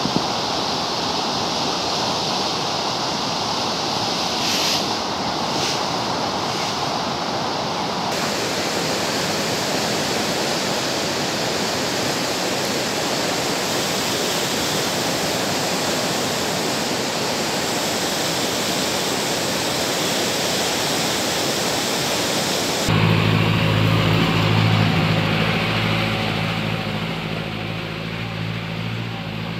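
Fast mountain river rushing over rapids, a steady noise of white water. About 23 seconds in it cuts to a vehicle's engine running with a steady low hum, heard from aboard the vehicle on a rough dirt track.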